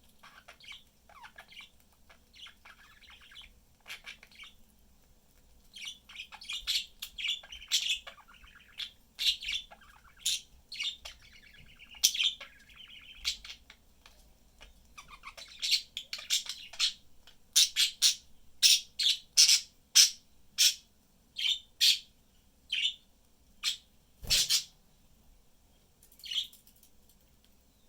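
Pet budgerigars chirping and chattering: soft warbling at first, then many loud, sharp chirps from about six seconds in, dying down near the end. A single short knock sounds about three-quarters of the way through.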